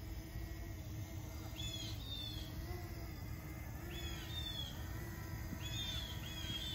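A songbird calling in short, clear, down-slurred chirps, in three bursts of two or three notes each, over a steady low outdoor rumble and a faint steady hum.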